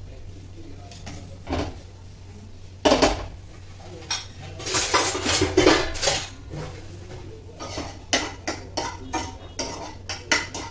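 Stainless-steel kitchen utensils clattering: a sharp clank about three seconds in, then a couple of seconds of steel plates and pans knocking together, followed by lighter scattered clicks and taps.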